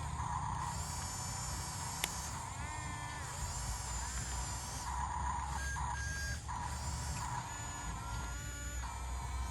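YIGONG YG258C excavator running with a steady low engine rumble. Higher-pitched whines come and go, some rising and falling as it works, with a sharp click about two seconds in.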